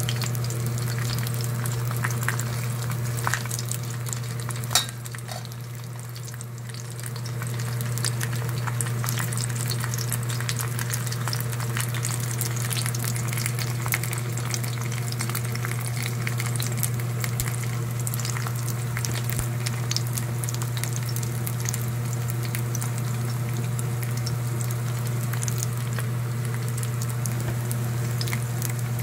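Battered pork pieces for guobaorou frying in hot oil in a pan: a steady sizzle full of fine crackles, over a constant low hum. One sharper click comes about five seconds in.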